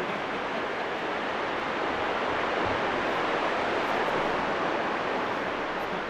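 Sea surf washing onto the shore, a steady rush that swells a little in the middle and eases off near the end.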